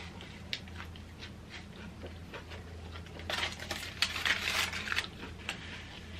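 Aluminium foil wrapped around a burger crinkling as the burger is handled and set down, a dense crackle from about three seconds in lasting nearly two seconds. Before it, soft chewing with scattered mouth clicks.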